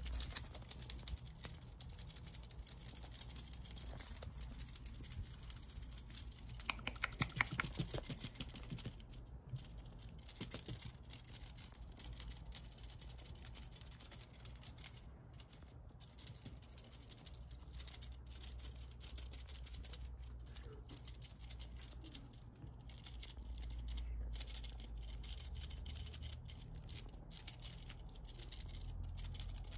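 Kittens scrabbling in a crocheted rope basket, their claws scratching and catching on the cord and the sheer fabric. The sound is a run of small scratchy clicks and rustles, with the loudest and quickest burst about seven seconds in.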